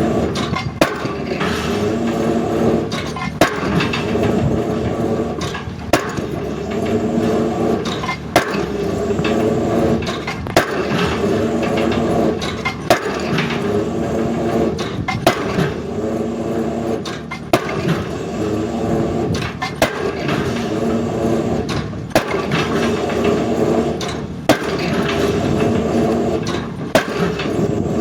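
Excavator drop hammer driving a square concrete pile: a sharp impact about every two and a half seconds, with the excavator's diesel engine running between strikes as the hammer is lifted.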